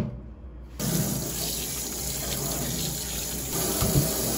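Kitchen tap running into a stainless steel sink, the water splashing over a gutted sea snake as it is rinsed by hand. The flow starts about a second in, after a short sharp knock, and stops just before the end.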